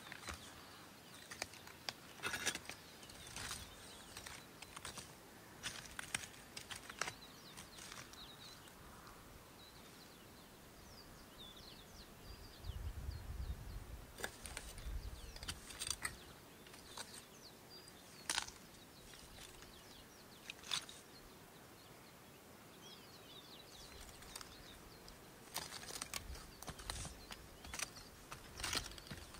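Quiet outdoor ambience: irregular crunching clicks in scattered clusters, faint high bird chirps, and two spells of low wind rumble on the microphone.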